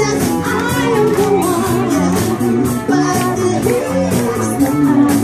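Cover band playing pop music live through a PA: a singer into a microphone over amplified bass, chords and a steady drum beat.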